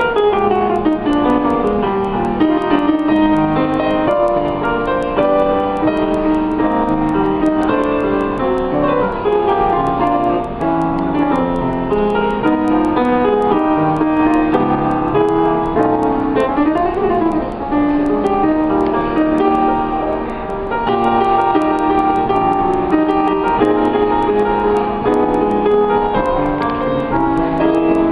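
Piano music, full of many notes with sweeping runs up and down the keyboard.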